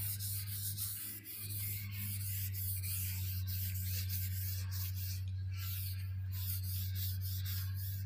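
A paintbrush stroking wood finish onto a wooden tabletop, a repeated soft swishing of bristles rubbing across the boards, over a steady low hum.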